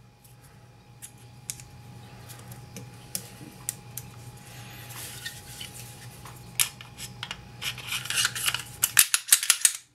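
Small metal clicks and scrapes of Walther PPS 9mm pistol parts being handled during reassembly: the recoil spring and barrel seated in the slide, then a run of louder clicks near the end as the slide goes back onto the frame.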